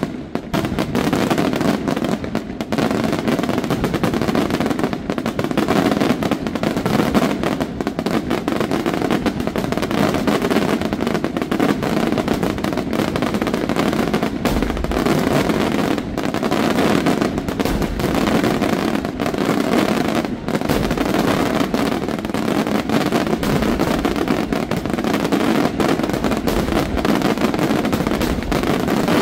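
Fireworks display at full intensity: a dense, continuous barrage of shells bursting and crackling in rapid succession, with no gaps, and a few heavier low booms around the middle.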